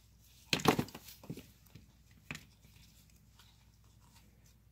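Handling noise on a workbench: a burst of rustling and clattering about half a second in as tools are picked up, then a few lighter knocks, one sharper near the middle.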